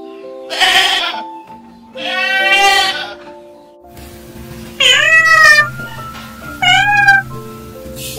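Goats bleating twice, the second a longer wavering bleat. Then a domestic cat meows twice, each meow rising and falling in pitch, over light background music.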